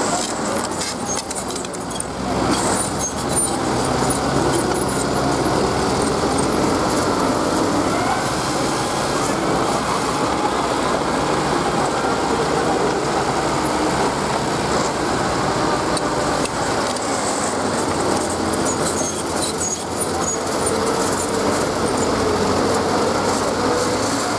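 Small crawler bulldozer's diesel engine running steadily as the machine pushes dirt, its pitch wavering slightly with the load.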